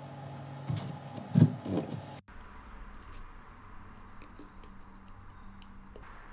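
Steady hum of a running vehicle with a few heavy thumps, the loudest about a second and a half in, then the sound cuts off suddenly to quiet room ambience with faint scattered clicks.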